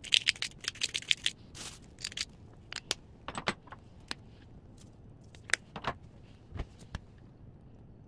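Hand-twisted pepper mill grinding peppercorns: a quick run of dry clicking crackles in the first second or so. Scattered clicks and short rustles follow until near the end.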